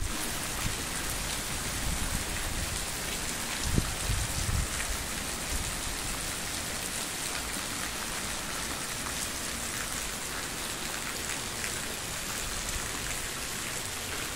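Steady rain falling, an even hiss of drops, with a brief low thump about four seconds in.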